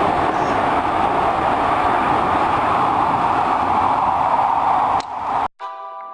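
Metro train running, a steady rumble and hiss that cuts off abruptly about five and a half seconds in; background music starts right after.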